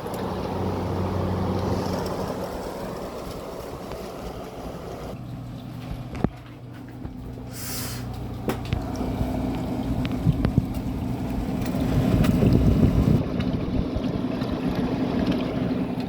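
GE 6,000 BTU wall air conditioner running: a steady mechanical hum from its compressor and fan, with its accumulator iced over. The hum changes about five seconds in. A few sharp clicks or knocks sound through it, and the rumble grows louder near the end.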